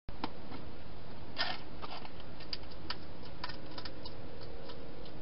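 Wild hedgehog eating from bowls inside a plastic feeding box: irregular sharp clicks and crunches, about a dozen, over a steady hiss.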